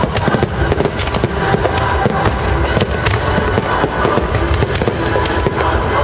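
Fireworks display at full barrage: many shells and rockets bursting and crackling in rapid, continuous succession, loud throughout.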